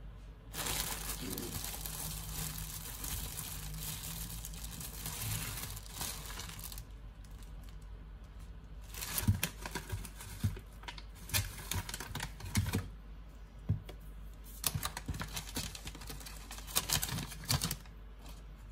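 A plastic bread bag rustling for about six seconds, then irregular knocks, taps and crinkles as bread slices and avocados are set down on a wooden cutting board. Near the end a plastic tub of baby spinach is handled.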